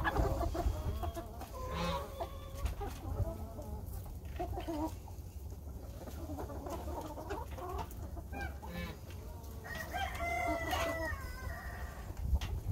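A flock of chickens clucking as they forage, many short calls overlapping, with a rooster crowing once for about a second and a half near the end.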